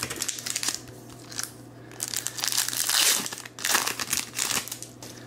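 Foil wrapper of a baseball card pack being torn open and crinkled by hand, in several rustling bursts over the second half, loudest about three seconds in.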